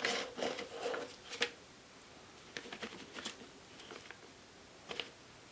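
Soft rustling and light clicks of a plastic piping bag being handled and readied, busiest in the first second and a half, then a few scattered clicks.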